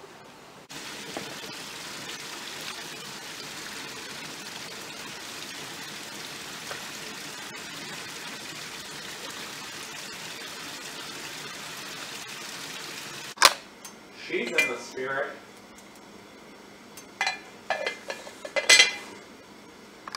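A small forest creek flowing steadily over rocks, with an even rushing sound that cuts off suddenly about two-thirds of the way through. A few short clinks and knocks follow.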